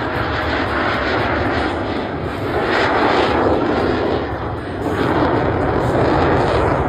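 Jet noise of a CF-18 Hornet's twin turbofan engines during its flying display: a loud, dense rushing sound that swells about three seconds in and again in the last two seconds.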